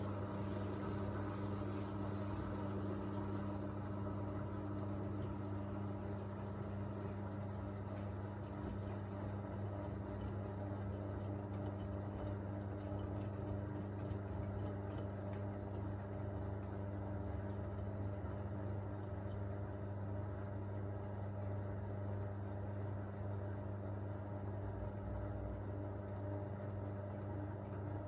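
Miele Navitronic W3985 WPS washing machine running mid-cycle on its Express 40° programme: a steady, even hum. One higher tone drops out about six seconds in.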